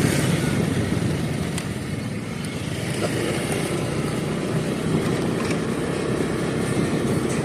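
Vehicle on the move: steady engine and road noise, with no sudden events.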